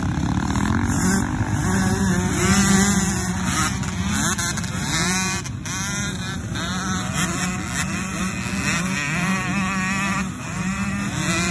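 A pack of small two-stroke junior dirt bikes revving hard as they ride off together. Several engines sound at once, their pitches rising and dropping again and again.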